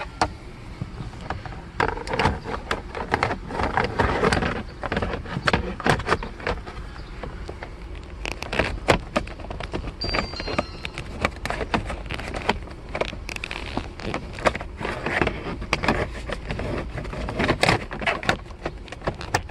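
Plastic steering-column trim cover being handled and pressed into place: a long run of irregular clicks, taps and light plastic knocks.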